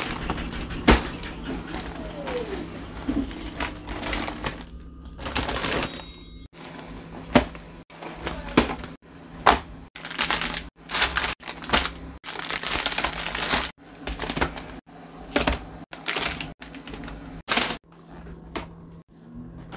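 Cardboard snack boxes and packaging being handled and set down in a woven seagrass basket: a string of sharp knocks, taps and rustles, broken up by many sudden cuts.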